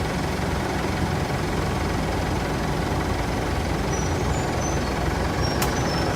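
Steady engine and road noise of a four-wheel drive on the move. A few faint, short high chirps come in the second half.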